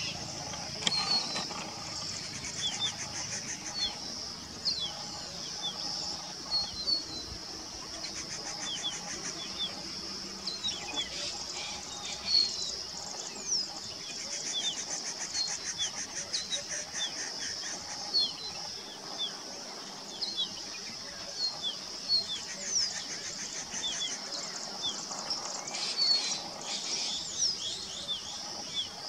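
Male crested bunting singing: short phrases of quick, high, falling notes repeated every few seconds, over a steady high-pitched background buzz.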